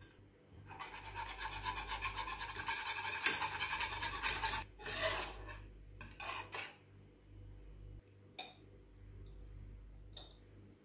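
Wire balloon whisk beating honey into peach purée in a saucepan, its wires scraping the pan in rapid strokes for about four seconds, then a few separate scrapes.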